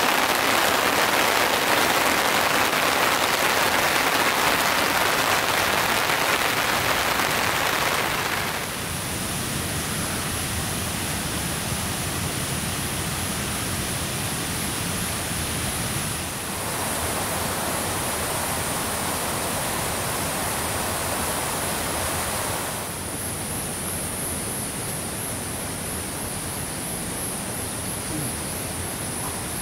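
Heavy rain falling, a dense steady hiss. It drops in loudness about eight seconds in, swells again around sixteen seconds and eases near twenty-three seconds. From about nine seconds in, a thin, high pulsing whine runs under it.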